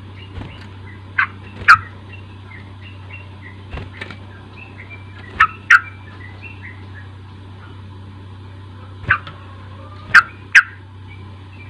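Yellow-vented bulbul lure recording: loud, sharp calls, mostly in pairs about half a second apart, with softer chirps twittering between them over a steady low hum.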